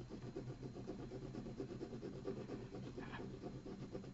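Gel pen scratching across paper in quick back-and-forth strokes while colouring in.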